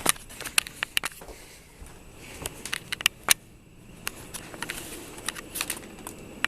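Irregular sharp clicks and light knocks of something being handled, some a second or more apart, over a faint rustle.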